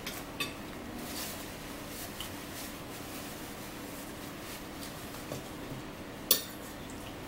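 Quiet mealtime eating sounds: soft chewing and small scattered clicks of utensils and dishes over a steady low hum, with one sharp clink of a dish or utensil near the end.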